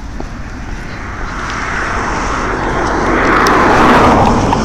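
Rushing noise of a passing vehicle, growing steadily louder over a few seconds and peaking near the end.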